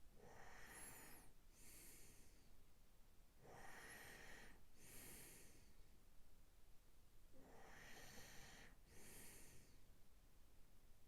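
A man's faint, slow sleep breathing. There are three breaths, each made of a longer draw followed closely by a shorter one, about every four seconds.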